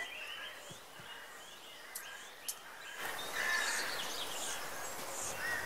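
Faint outdoor nature ambience with small birds chirping. The background grows louder about three seconds in, and two light clicks come shortly before that.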